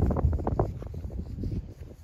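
Wind buffeting the microphone: an uneven low rumble that is strongest in the first half-second and then eases off.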